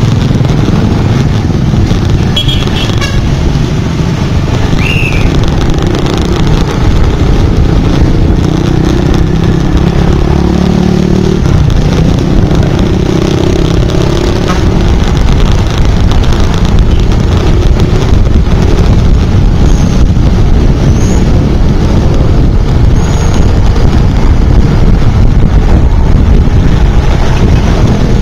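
Steady loud rumble of motorbike and traffic noise heard while riding in heavy traffic, mostly deep road and wind noise. An engine note rises and falls around the middle, and a few short high chirps come through.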